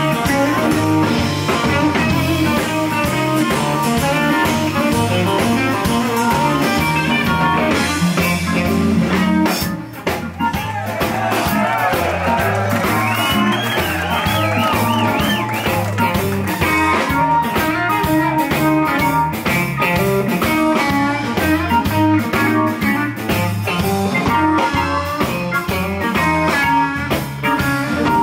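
A live blues band of guitar, drums, bass and keys playing. The sound dips briefly about ten seconds in, and then the lead guitar plays a run of bent notes that climb high.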